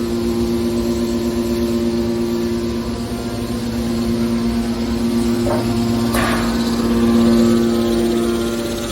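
Hydraulic metal baler's power unit running with a steady hum. About six seconds in there is a brief scraping clank, likely from metal being worked in the press.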